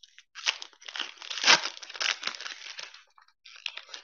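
Plastic trading card pack wrapper crinkling and tearing as it is ripped open by hand, in irregular rustling bursts.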